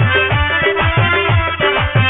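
Instrumental passage of a Bangla folk song: a hand drum plays quick bass strokes that each drop in pitch, about four a second, under steady held melody lines.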